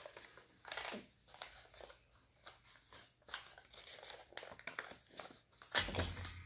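Sheet of origami paper crinkling and rustling in irregular bursts as it is folded and squeezed by hand, with a soft thump near the end.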